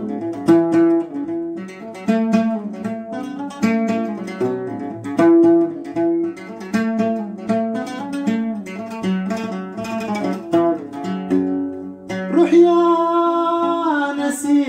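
Instrumental interlude of a Sudanese Haqiba song: a plucked string instrument plays a quick melody of separate notes. Near the end a singing voice comes in on a long, wavering note.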